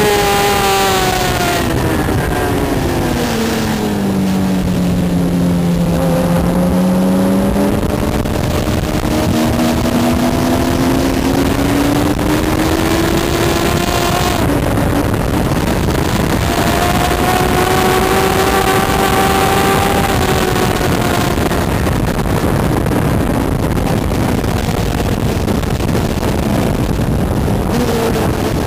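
Suzuki GSX-R1000 inline-four motorcycle engine at track speed, heard from onboard. Its pitch falls over the first six seconds as the bike slows, climbs again, drops suddenly about fourteen seconds in, rises and holds, then falls once more past twenty seconds. Heavy wind rush runs under the engine.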